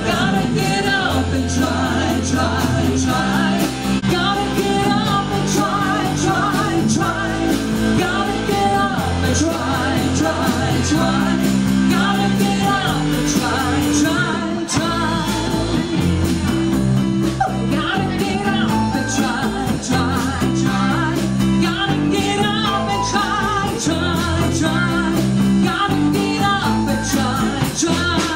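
A rock band playing live: electric guitar, bass guitar and drums at a steady beat, with a sung vocal line over them.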